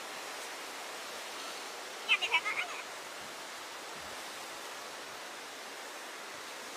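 Steady hiss of surf from the sea, with a quick run of high-pitched squeaks from a baby monkey about two seconds in.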